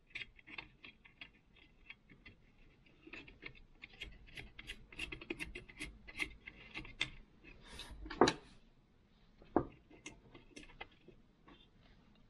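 Small metal washers and nuts clicking and tapping as they are handled and fitted onto the exhaust muffler studs of a Stihl chainsaw. A louder knock comes about 8 seconds in, the loudest sound, and a second one about a second and a half later.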